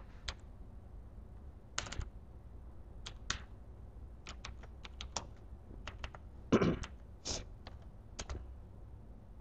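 Computer keyboard keystrokes: single key presses at uneven intervals, entering a shell command and then working in a text editor. A couple of louder, heavier key knocks come about two-thirds of the way through.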